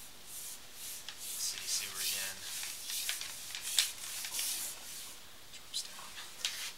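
Sewer inspection camera's push cable being fed down the line by hand: irregular strokes of rubbing and scraping, with a few sharp clicks.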